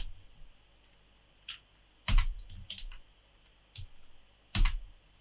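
Clicks and taps of a computer keyboard and mouse in use: three louder clicks, at the start, about two seconds in and near the end, with scattered lighter taps between.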